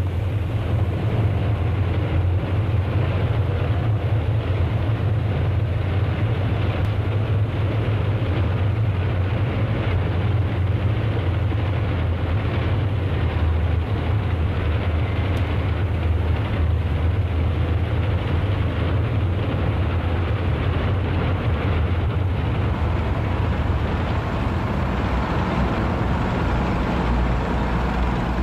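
A column of tanks driving past in parade, a steady heavy rumble of engines and tracks.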